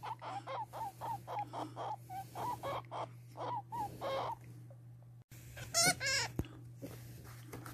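Hamster squeaking: a quick run of short chirping squeaks, about three a second, through the first four seconds. After a pause come two longer, wavering, higher squeals about six seconds in.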